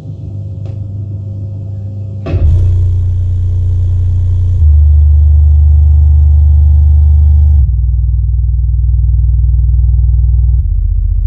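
Deep film-soundtrack bass played through a down-firing Yamaha YST800 subwoofer. A low rumble jumps suddenly louder about two seconds in, then gives way to sustained low bass tones that shift in steps, loudest in the middle.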